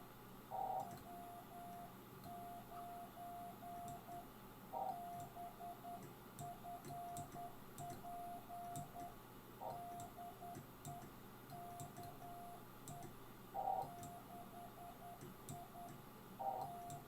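Morse code (CW) from a ham radio transceiver: a single steady tone of about 700 Hz keyed on and off in quick dots and dashes, with a few louder blips every four or five seconds.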